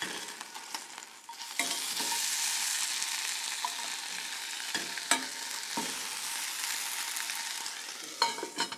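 Chicken pieces sizzling as they fry in an oil-free pan, the sizzle growing louder about a second and a half in as they are turned over. A few sharp clicks against the pan.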